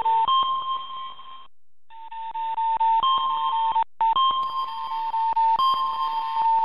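Seismic monitor's electronic alarm signal: steady beeping tones near 1 kHz switching between two pitches, over rapid regular ticks several times a second. It breaks off briefly about one and a half seconds in, and a higher tone joins about four and a half seconds in. The monitor sounds it while its stations register strong seismic waves from a large distant earthquake.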